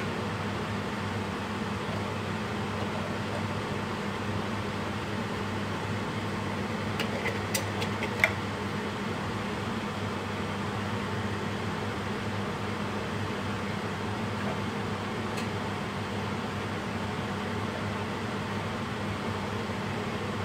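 A steady mechanical hum with a few light clicks about seven to eight seconds in.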